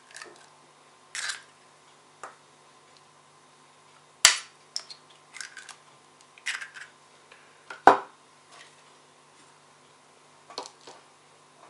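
Two chicken eggs cracked open with a knife blade over a plastic bowl: two sharp cracks about three and a half seconds apart, with lighter taps and shell crackling between.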